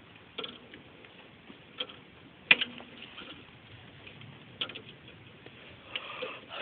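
A handful of separate sharp metallic clicks and taps from hand tools and a bolt at the alternator mounting bracket, as a mounting bolt is fitted. The loudest click comes about two and a half seconds in.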